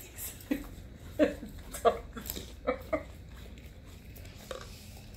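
Alaskan malamute licking ice cream out of a small cup on a tile floor, with a string of short squeaky sounds from about half a second to three seconds in and one more near the end.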